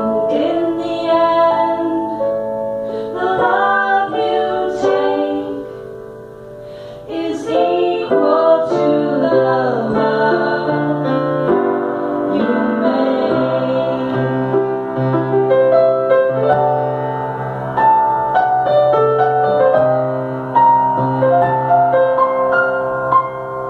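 Live song: an upright piano played under a woman's voice singing into a microphone, the melody bending and wavering over sustained piano chords. It dips briefly quieter about six seconds in.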